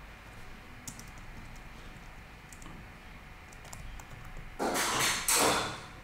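Computer keyboard being typed on: a few scattered light keystroke clicks. Near the end come two short, louder bursts of hiss-like noise, one right after the other.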